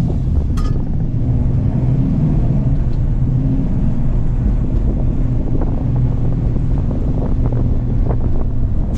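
Muscle-car V8 engine running steadily at an unchanging speed, its deep note neither rising nor falling.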